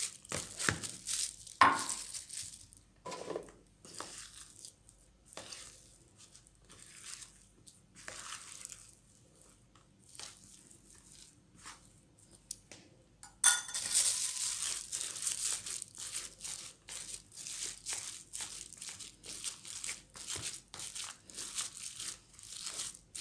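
A spoon stirring and scraping through mashed potato and flour in a plastic bowl: irregular strokes, sparse and soft at first, then quicker and louder from a little past halfway.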